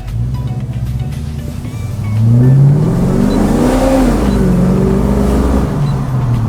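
LS V8 engine in a VH Holden Commodore idling, then about two seconds in it is given roughly half throttle: the revs climb to a peak, drop back and settle again.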